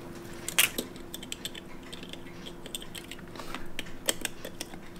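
Small, irregular clicks and taps of steel tweezers against a quartz chronograph movement and its stainless steel watch case as the movement is set back into the case, with a sharper click about half a second in.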